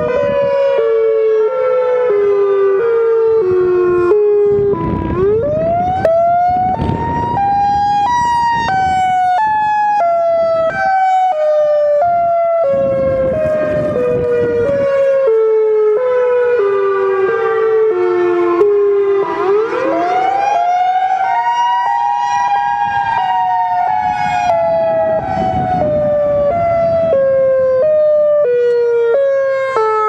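Federal Signal EOWS-612 electronic siren sounding its Alternate Wail (high-low wail) signal: two close tones alternate rapidly while the overall pitch slowly falls, sweeps up about 5 and 20 seconds in, and falls again.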